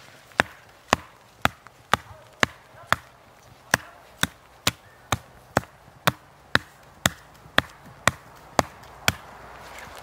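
A short-handled axe chopping into the trunk of a small live conifer near its base, with steady, evenly spaced blows about two a second that stop about nine seconds in.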